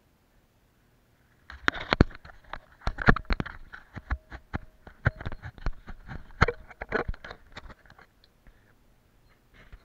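Dense, irregular clicks, scrapes and knocks of a hand handling the camera right at its microphone, starting about a second and a half in and dying away near the end.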